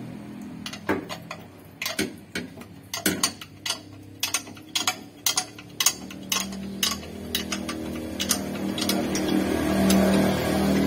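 Sharp metallic clicks and clinks, a few a second and irregular, as the clutch cover of a Daihatsu Gran Max is handled and its bolts started against the flywheel with a wrench. About six seconds in, a low steady hum comes in and grows louder toward the end.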